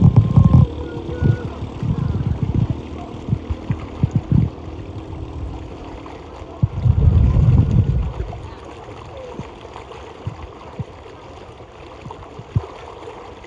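Floodwater running and gurgling across a flooded road, overlaid by three loud low rumbles: one at the start, one from about one to four and a half seconds in, and one about seven seconds in.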